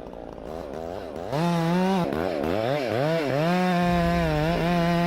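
Chainsaw engine revving up and down several times, getting louder about a second in, then held steady at high revs for the second half.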